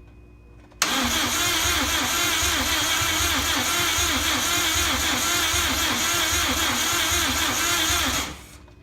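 Starter cranking the swapped-in JDM EJ205 flat-four in a 2002 Subaru WRX with a steady, even rhythm for about seven seconds without the engine catching, then stopping. It is a no-start: the engine turns over but does not fire.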